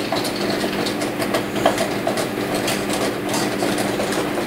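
Small screwdriver unscrewing the horn screw on a Hitec HS-805BB servo, making scattered irregular clicks over a steady low mechanical hum.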